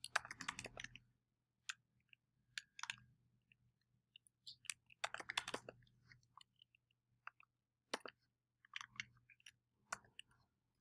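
Faint, scattered keystrokes on a computer keyboard, a few irregular clicks in small clusters with gaps between them.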